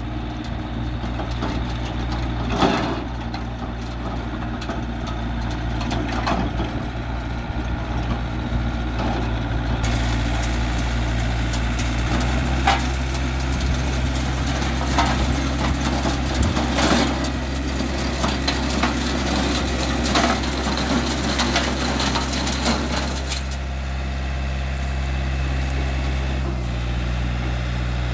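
2005 John Deere 990 compact tractor's diesel engine running steadily under load, driving a 6-foot King Kutter II PTO rotary tiller whose tines churn through the dirt, with scattered sharp knocks. About five seconds before the end the churning falls away as the tiller lifts out of the soil, and the engine runs on.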